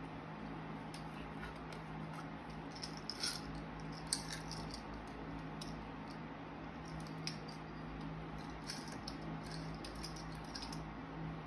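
Small plastic green eyes rattling in a little plastic container and clicking onto sticky slime as they are shaken out, a few scattered clicks over a steady low hum.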